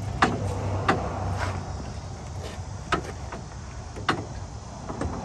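Scattered metallic clicks and clanks from a breaker bar and socket on the hex top of a truck's air dryer filter cartridge as it is strained to break the cartridge loose, about five sharp clicks at uneven intervals. A low hum fades out in the first second and a half.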